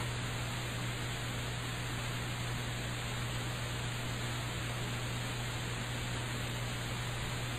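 Steady hiss with a low electrical hum running under it: the empty noise floor of an old tape recording of a sermon.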